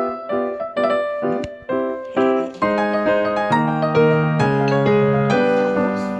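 Background piano music: quick struck notes at first, then slower held chords from about halfway through.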